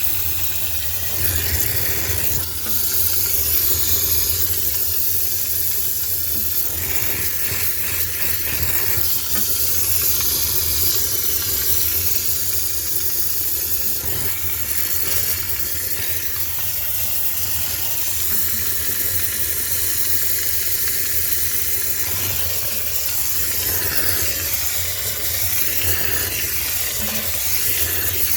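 High-pressure steam cleaner hissing steadily as it blasts steam for sterilization, over a steady low hum.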